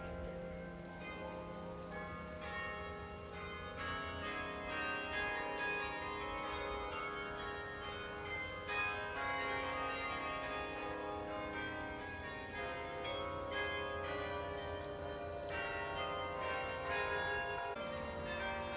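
A 60-bell tower carillon, played from its keyboard by a carillonneur, ringing out a tune: a continual run of bell notes struck one after another, each ringing on and overlapping the next.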